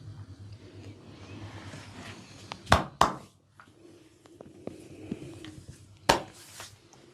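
Sharp smacking cracks of the barber's hands during a head and neck massage: two close together about two and a half seconds in and one more about six seconds in, with soft rubbing and a few small clicks between them.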